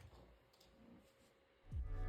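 Faint clicking of Akko V3 Cream Blue Pro tactile keyboard switches, then background music starts suddenly near the end.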